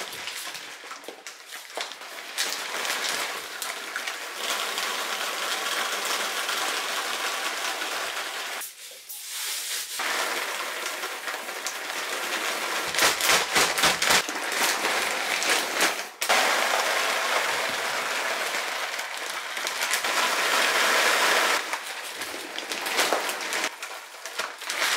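Plastic dog-food bags crinkling and rustling as they are handled and squeezed, with scattered small clicks of dry kibble dropping onto the floor.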